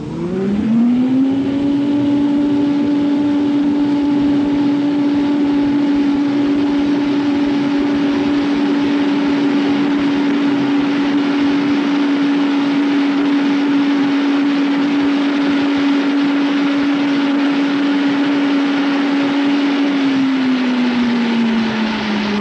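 Wind tunnel blower starting up with a rising whine, then running steadily at speed with a rush of air, driving the airstream at about 210 miles per hour. Near the end the whine drops in pitch as the blower slows.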